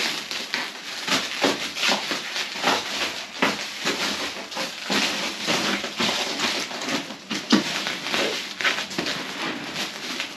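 Black plastic wrapping crinkling and rustling in quick irregular crackles as it is pulled and torn off a package by hand.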